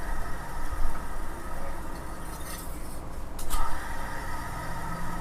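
Ceiling fan rotor turning on its bearing, a steady mechanical whir and rub with a few light clicks, as it is checked for smooth running after the bearing was found rough.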